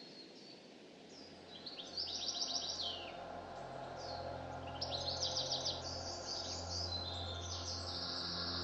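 Birds singing in the trees, with high chirps and two rapid trills about two and five seconds in, over a steady low hum.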